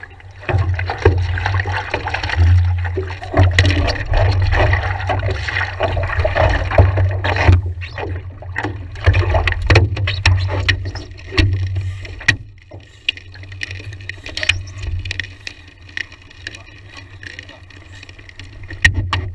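Water splashing and sloshing against the nose of a stand-up paddleboard as it is paddled along, with many small sharp slaps and a steady low rumble underneath. The splashing is busiest in the first half and settles down after about twelve seconds.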